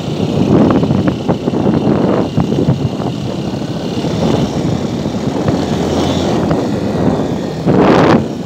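Honda Bros 160 motorcycle's single-cylinder engine running while riding along a rutted dirt road, mixed with wind rushing over the microphone. A brief louder rush comes near the end.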